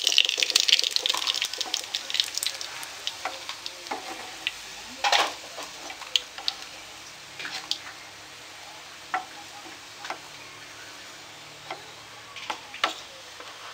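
Chicken skin frying in hot oil, crackling densely for about the first two seconds, then thinning to a faint sizzle with scattered utensil knocks and scrapes as the crisp skins are lifted out of the pan.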